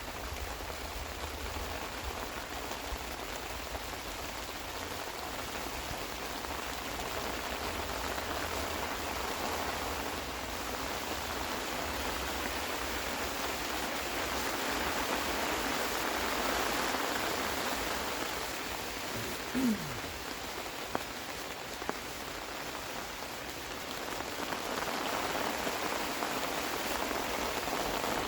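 Steady rain falling, growing a little heavier around the middle and again near the end. About two-thirds of the way through, a short low tone slides downward.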